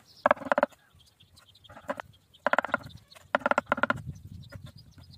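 Livestock bleating in four short calls, each about half a second, with the light tapping of a chef's knife dicing pickled cucumbers on a bamboo cutting board between them.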